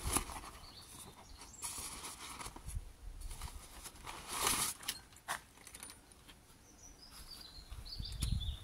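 Nylon drawstring bag rustling and the metal frame of a child bike seat clinking as it is pulled out, in short irregular bursts with the loudest rustle about halfway through. Faint high chirps, a bird's, come in near the end.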